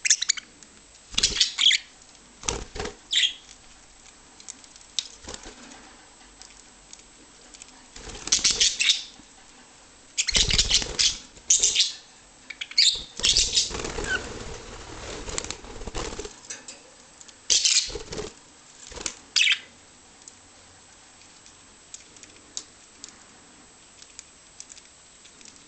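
Pet budgies flapping their wings in several short bursts of one to two seconds, with a few brief chirps between.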